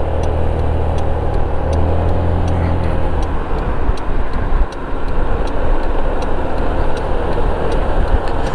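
Scooter engine running at road speed under heavy wind and road rush on the camera's microphone; its low hum holds steady for the first few seconds, then sinks into the wind noise. A faint even ticking, about two a second, runs underneath.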